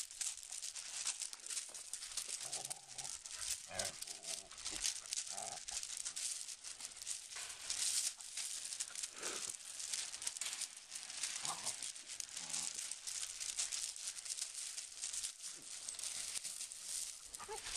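Puppies play-wrestling and rolling on a gravel floor: a continuous crunch and crackle of shifting stones under their paws and bodies, with a few short puppy noises scattered through it.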